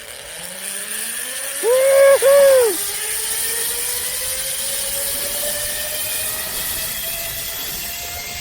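Zip-line trolley running along the steel cable: a whine that climbs slowly and steadily in pitch as the rider gathers speed, over a rushing hiss. About two seconds in, a person gives two loud rising-and-falling yells.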